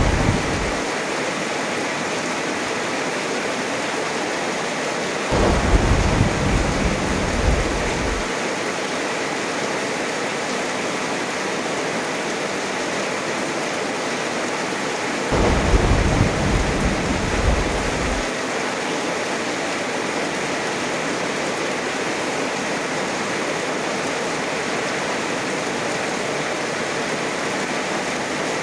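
Heavy rain falling steadily, with two rolls of thunder, one about five seconds in and one about fifteen seconds in, each rumbling for about three seconds.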